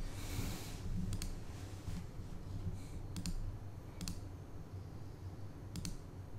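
Computer mouse clicks, about five single clicks spaced irregularly over several seconds, with a brief rustle at the start and a faint steady low hum underneath.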